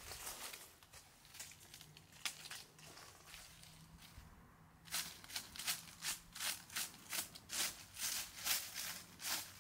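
Dry fallen leaves rustling and crackling as hands rake and pick through them on the ground, faint at first, then a run of short crackling rustles, about two a second, in the second half.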